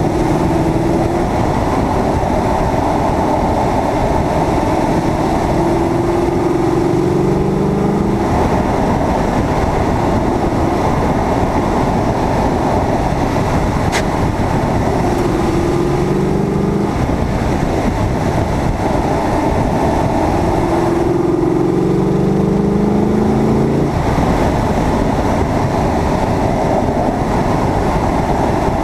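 Heavy wind and road rumble on an exterior car-mounted camera as a Corvette's V8 drives a winding road. The engine note rises in pitch a few times under acceleration, each rise breaking off sharply at a shift or lift. A single sharp click comes about halfway through.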